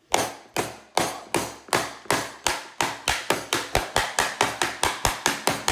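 Small wooden mallet hammering the hard shell of a giant lobster claw on a plastic cutting board: a long run of sharp knocks that speeds up from about two to about four blows a second. The blows are just beginning to crack the shell.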